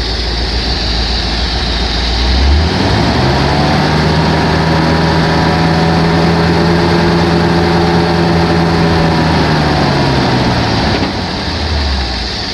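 1955 Ford Thunderbird's Y-block V8 idling, then revved at the carburetor linkage about two and a half seconds in, held at a steady raised speed for about seven seconds, and let fall back to idle near the end. As it settles there is a little noise from the mufflers, which the owner says is not a backfire but the metal inside the mufflers flexing.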